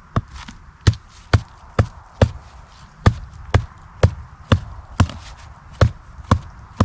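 A blade chopping into wood with steady, evenly spaced strokes, about two a second, with a short pause partway through.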